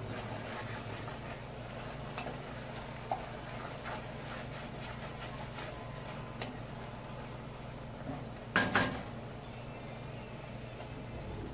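Wooden spoon stirring caramelizing onions in an enamelled cast-iron pot, with soft scraping and a faint sizzle over a steady low hum. A louder double knock comes about two-thirds of the way through.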